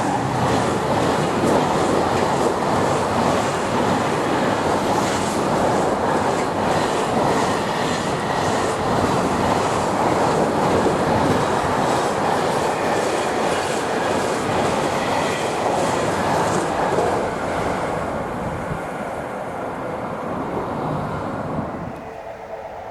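Freight train wagons passing at speed: a steady rush of wheels on rail with a rhythmic clickety-clack over the rail joints, which fades over the last few seconds as the tail of the train goes by.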